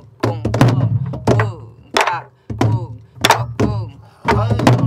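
Sori-buk barrel drums struck with wooden sticks by a group playing a pansori rhythm together: sharp hits on the skin and wooden shell in an uneven pattern.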